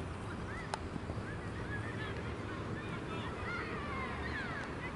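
Birds calling repeatedly in short, overlapping, arched cries over a steady low background noise, with a single sharp click about a second in.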